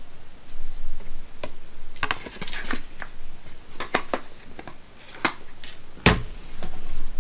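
Knives and sheaths being handled and set down on a table: scattered metallic clinks and knocks, with a heavier thump about six seconds in.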